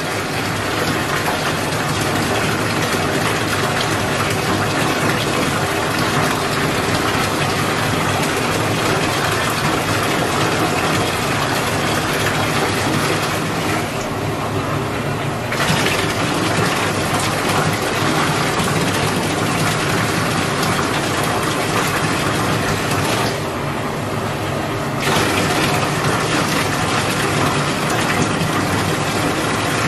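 Water running into a bathtub and splashing over a small dog being rinsed of shampoo: a steady rush of water. It dulls briefly about halfway through and again about two-thirds through, as the flow shifts.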